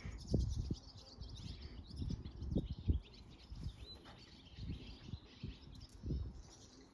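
Birds chirping in the background, with irregular low thumps and rumbles about once a second.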